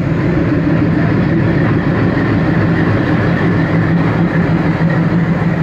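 Indian Railways WDM-3D diesel locomotive running close alongside, its engine giving a loud, steady low drone.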